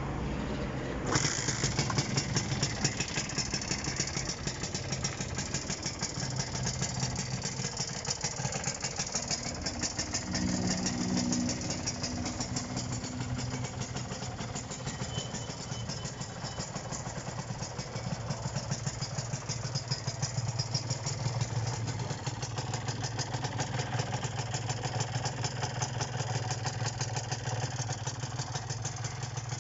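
Kawasaki AR125R's two-stroke single-cylinder engine idling steadily with a fast, even pulse. It gets louder and harsher about a second in.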